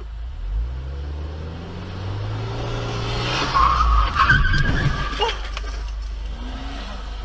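Car engine pulling away and rising in pitch, then tyres skidding and squealing for about a second and a half, starting about three and a half seconds in, with a few sharp knocks in the skid.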